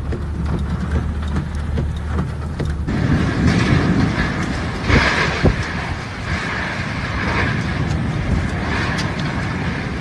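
A steady low hum with rushing noise inside a car on a flooded road, then, after a cut about three seconds in, storm wind blowing hard, a loud, rough rushing that swells and eases in gusts, likely with rain.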